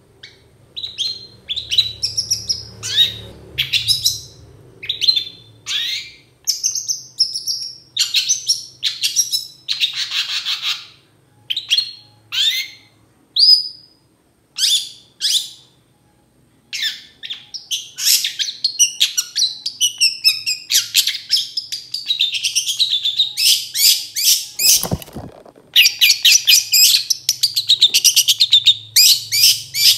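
Long-tailed shrike (cendet) singing: a string of short, sharp chirps and trills with brief gaps between them, a pause of about two seconds, then a fast, unbroken run of chattering, varied song. A single low thump sounds toward the end.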